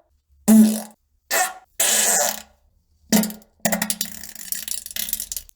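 A run of fart sounds: four short blasts in the first three seconds or so, then a long sputtering one of rapid pops lasting about two seconds.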